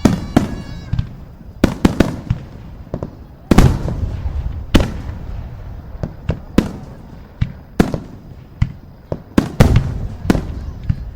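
Fireworks bursting: more than a dozen sharp bangs at irregular intervals, roughly one every half second to second, each trailing off in a low rumbling echo.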